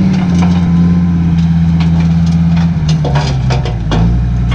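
Dump truck engine running steadily, its revs dropping about three seconds in, with a few knocks and rattles near the end.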